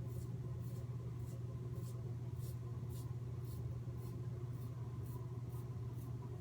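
Merkur 37c safety razor with a Derby blade scraping through lathered stubble in short strokes, about two a second, over a steady low hum.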